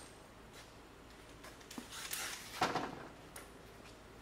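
Scattered knocks and clicks of handling in a workshop, with a short louder clatter about two and a half seconds in.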